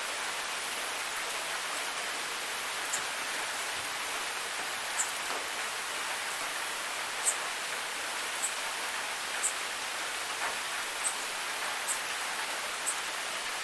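Steady light rain, an even hiss, with occasional sharp high ticks of single drops about once a second from a few seconds in.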